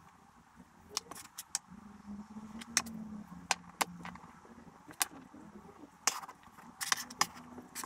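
Solid wooden Cuboro marble-run blocks knocking and clacking as they are picked up and set down against one another on a wooden tabletop: a string of sharp, irregular knocks, with a quick cluster near the end.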